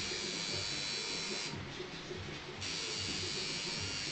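A small electric motor buzzing steadily. Its high, hissing part briefly drops away about a second and a half in and returns about a second later.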